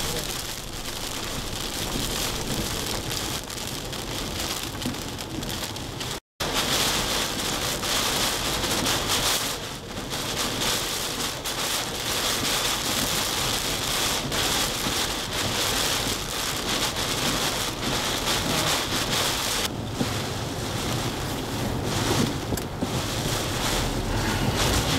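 Hurricane Irene's heavy rain and wind, a dense steady hiss of driving rain with gusts. The sound drops out for a moment about six seconds in and comes back heavier, easing a little again about twenty seconds in.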